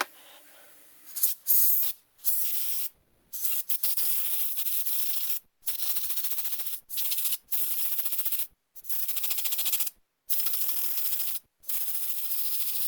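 Aerosol cleaner spraying through a small-engine fuel filter in repeated hissing bursts of about a second each, with short breaks between them.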